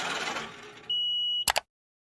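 Background noise fades, then a single steady high-pitched electronic beep of about half a second sounds, followed by two sharp clicks, and the audio cuts to dead silence.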